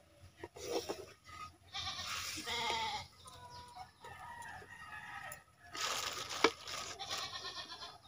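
Goats bleating several times in the background, with a wooden spatula scraping a clay pot of curry and one sharp knock about six and a half seconds in.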